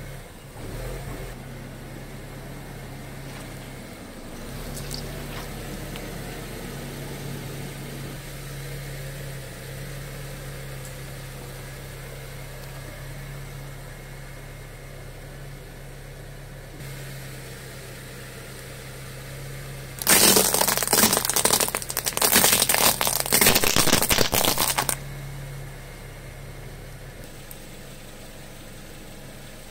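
A car engine idling steadily, with a loud stretch of crunching and crackling lasting about five seconds past the middle as the tyre rolls over and crushes objects on concrete.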